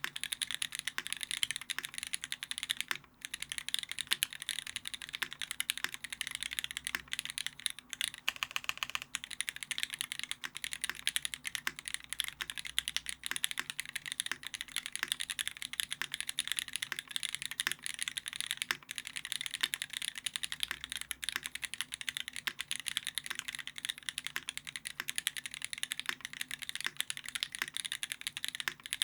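Steady, fast typing on a Keycult No.2 rev.1 custom mechanical keyboard: lubed and filmed vintage black linear switches in a brass plate under GMK keycaps, making dense keystroke clacks with a brief pause about three seconds in.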